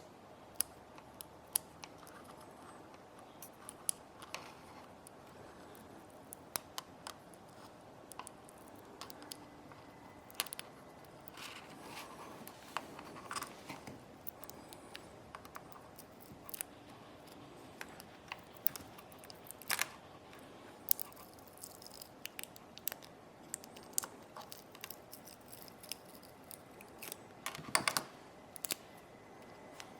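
Scattered small clicks, taps and scrapes of hand tools and small parts being handled while taking apart an iPod nano, with a quick run of louder clicks near the end.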